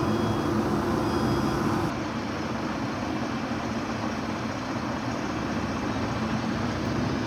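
A vehicle engine idling steadily: a low rumble with a hum over it that drops back and gets a little quieter about two seconds in.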